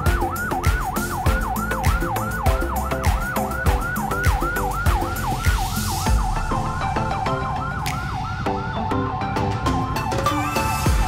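Electronic yelp siren, its pitch sweeping up and down about three times a second, over background music with a steady beat. The siren stops about nine seconds in.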